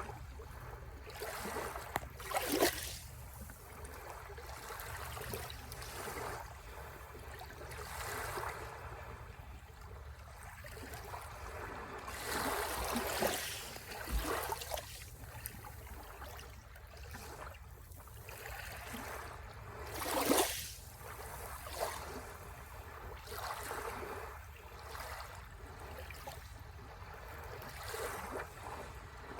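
Sea waves washing onto the shore in irregular swells, the loudest rushes a few seconds in, about halfway and about two-thirds through, over a steady low rumble.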